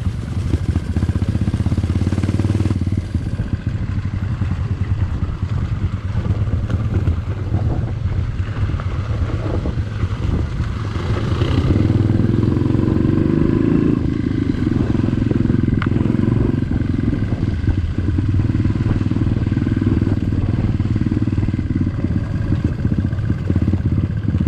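Trail motorcycle engine running under way, with scattered clatter. The engine gets louder and rises in pitch around the middle.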